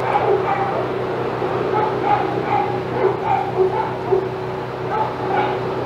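Dogs barking and yipping excitedly in quick, repeated calls, over a steady low hum.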